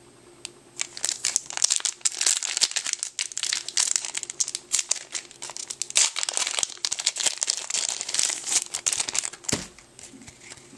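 Foil wrapper of a Yu-Gi-Oh! trading card booster pack being torn open and crinkled by hand: a dense run of crackling that starts about a second in and dies down about a second before the end.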